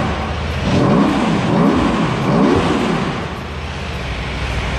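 Aprilia motorcycle engine being revved: three quick throttle blips, each rising and falling in pitch, then settling back to a steady idle about three seconds in.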